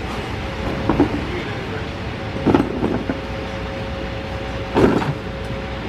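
Mercedes Econic 2635 rear-loader garbage truck running in place with a steady whine, while plastic wheelie bins knock as they are pulled over the street: one knock about a second in, two more around two and a half to three seconds, and the loudest near five seconds.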